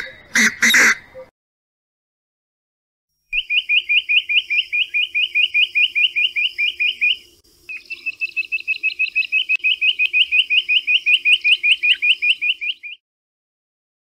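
Jungle bush-quail calling: two long runs of rapid, evenly repeated high notes, the second starting after a short break. Just before them, a painted francolin's loud harsh calls end about a second in.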